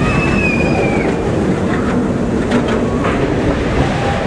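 Steel dive coaster train climbing its lift hill: a steady heavy rumble of wheels on track, with a brief high squeal near the start and a few clanks around the middle.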